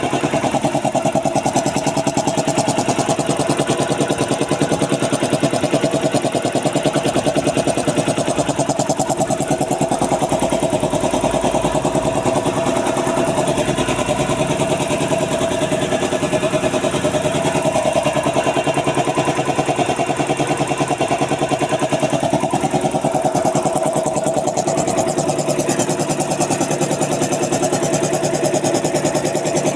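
Puma 5 HP high-pressure piston air compressor, rebuilt with new piston rings, running steadily under load with a fast, even pulse from the pistons.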